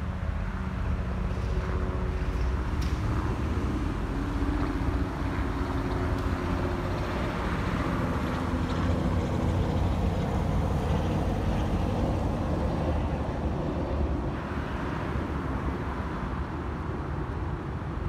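Fire department pickup truck driving past, loudest about ten seconds in and fading as it moves away, over a steady low rumble.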